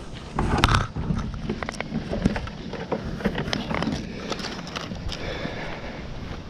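Irregular knocks, clicks and rustling of gear being handled, mixed with footsteps on the asphalt driveway, loudest about half a second in.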